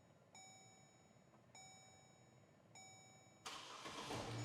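GMC Canyon warning chime dinging steadily with the ignition switched on, about once every 1.2 seconds, each ding a single tone that fades away. Near the end a louder rushing noise sets in suddenly.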